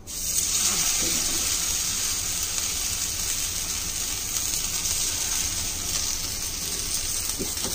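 Sago-and-potato tikkis sizzling in ghee on a hot flat griddle (tawa): a steady frying hiss that sets in as the first patty goes down and holds evenly.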